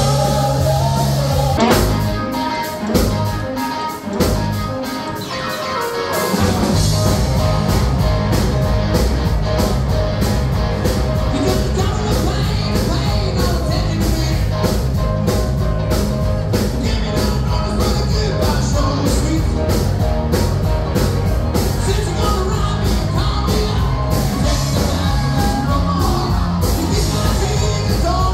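Live rock band playing with a singer: electric guitars, bass and drum kit. About two seconds in the bass drops away for a few seconds with a couple of loud hits. The full band comes back in about six seconds in with a steady beat.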